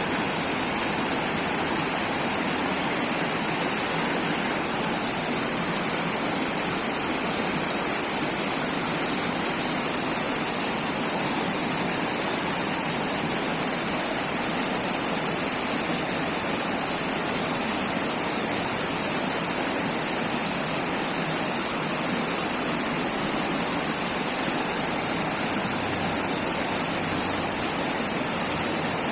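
River water flowing steadily, a constant even rush with a strong hiss in the highs and no change throughout.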